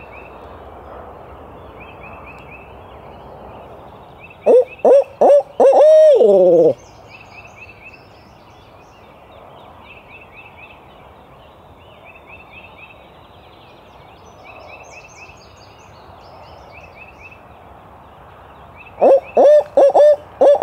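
Barred owl hoot given as a turkey hunter's owl locator call, loud and close, twice: three short hoots, then a longer hoot that slides down at the end, sounded to make a gobbler shock-gobble. Behind it, a faint steady hum of distant highway traffic and a bird repeating a short high phrase every couple of seconds.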